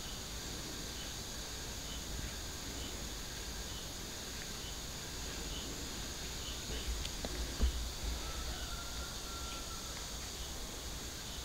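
Steady high-pitched insect chorus with a low hum beneath, and a single soft thump about two-thirds of the way through.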